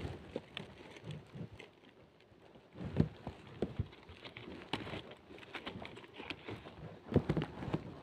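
Hands handling slabs of wild honeycomb on leaves over dry leaf litter: irregular rustling and crackling with light taps, louder about three seconds in and again about seven seconds in.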